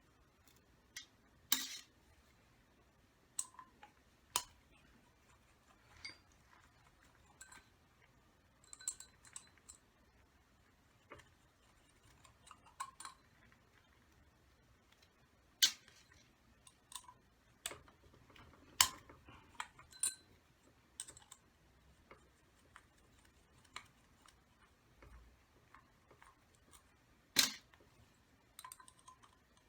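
Irregular clicks and light metallic clinks of small tools and parts of an O.S. Speed 21XZ-R RC engine being handled during disassembly, with a few sharper knocks among them.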